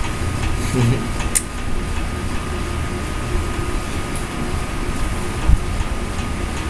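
Steady low background hum with a faint high whine over it, broken by a single click about a second and a half in and a low thump near the end.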